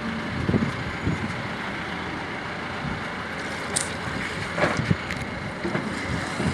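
Steady rumble of a vehicle engine running, with a few knocks and clatters from the dispenser's rubber hose and fuel nozzle being handled, about half a second in and again near the end.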